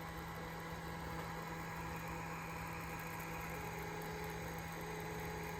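Laser engraver running as it engraves: a steady hum with a few held tones, joined about three and a half seconds in by a fainter whine that breaks off briefly and comes back.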